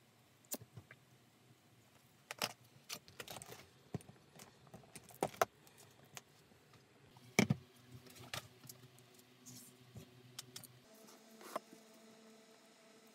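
Hands handling small tools and a leather strap on a cutting mat: scattered sharp clicks and taps, with a louder knock about seven seconds in.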